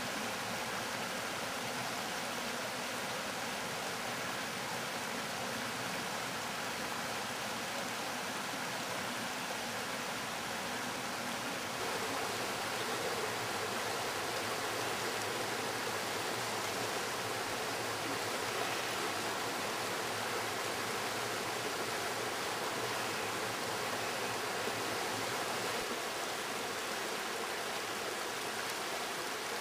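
Shallow river water rushing over stones in a steady wash, a little louder from about twelve seconds in.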